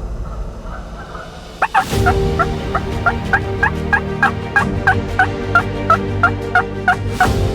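A steady run of turkey yelps, about three a second, lasting around five seconds, with a sharp click just before the run starts and another as it ends.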